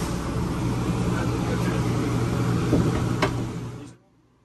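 A steady mechanical hum with a rushing noise, which cuts off suddenly about four seconds in, leaving near silence with a few faint ticks.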